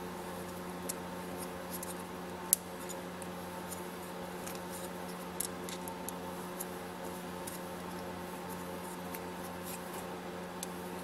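Small hand tools clicking and scraping on the plastic and metal parts of an RC truck's wheel hub as it is worked into place and snugged down, with one sharper click about two and a half seconds in. A steady low electrical hum runs underneath.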